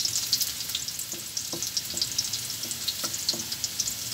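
Chopped garlic frying in hot cooking oil, a steady dense sizzle and crackle as it browns, with a few light knocks and scrapes of a spatula against the pan.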